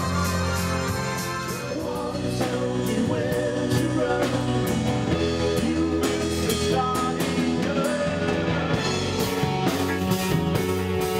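Rock music played by a band with drum kit and electric guitar, with singing. A wavering sung note at the start gives way to the band's drums and guitar about a second and a half in.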